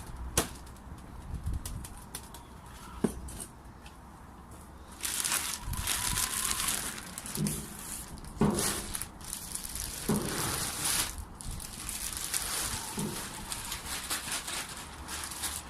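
Well-rotted manure being moved onto a garden bed: crumbly, scraping noises that start about five seconds in and run on, with a few sharp knocks from the tools.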